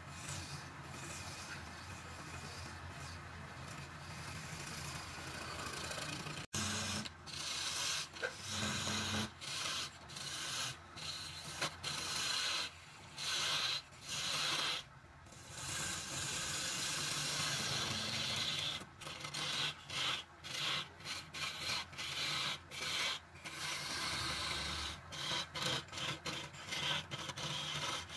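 A hand-held scraping chisel cutting into wood spinning on a lathe: a rasping scrape that breaks off and starts again many times in the second half as the tool is lifted and set back on the work, over a steady low hum.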